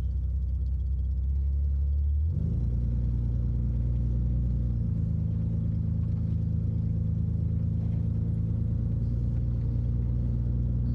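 The 1964 Chevrolet Corvair Monza's air-cooled flat-six engine, heard from inside the cabin, idling with a low hum. About two seconds in, its pitch steps up as the car pulls away gently, and it then runs steadily at the higher pitch.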